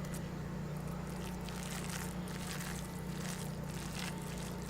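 A steady low engine-like hum, with a few faint soft clicks over it.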